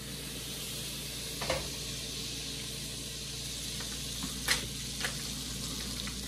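Butter melting and sizzling in a pot on an electric burner, a steady hiss, as the roux is started. Two sharp clicks cut through it, the louder one a little past the middle.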